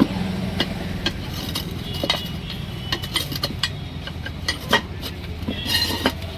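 Irregular sharp metallic clinks and knocks over a steady low hum.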